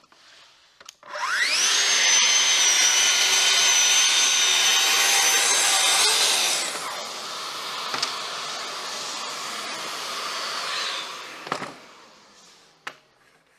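Festool cordless track saw spinning up with a rising whine about a second in, then running at a steady high pitch as it makes a cut along its guide rail. Past the middle the sound drops to a quieter whirr that fades out a few seconds later.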